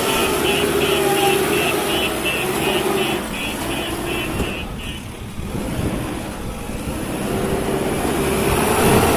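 Heavy diesel machinery running, its engine pitch rising and falling with the revs. For the first half a rapid electronic beeping repeats about three times a second, then stops.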